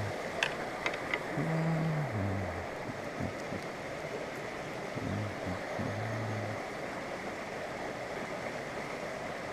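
Rushing water of a fast, clear river, a steady hiss, with a few sharp clicks about half a second to a second in. Low, held notes of background music sound over it and stop about two-thirds of the way through.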